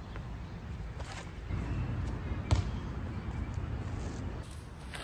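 A few sharp knocks on the asphalt court, the loudest about two and a half seconds in, over a steady low rumble.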